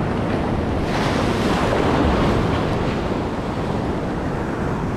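Shore surf washing in over sand and around rocks, a steady rushing wash that swells about a second in and eases off after a couple of seconds, with wind buffeting the microphone.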